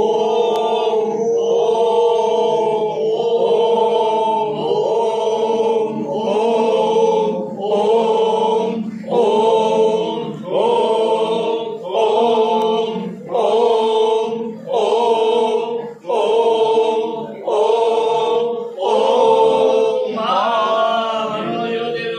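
A group of voices chanting a short devotional phrase in unison, over and over, about once every second and a half, over a steady low tone; near the end the chant moves on to a different, gliding phrase.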